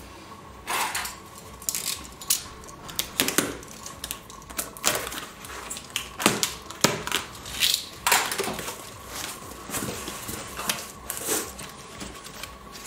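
Cardboard shipping box being opened: a blade slitting the packing tape along the top seam and the flaps pulled back, in an irregular run of scrapes, rips and knocks.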